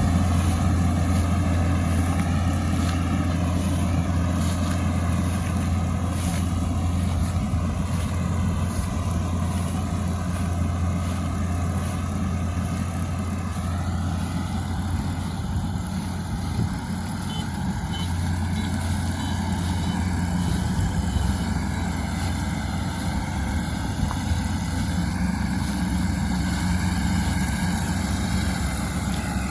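Combine harvester's engine running steadily while harvesting rice, a low drone that holds the same pitch throughout.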